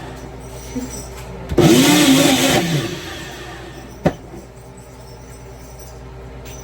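Countertop blender crushing ice for a slushie, pulsed once for about a second: the motor spins up and back down. A single sharp knock follows about four seconds in.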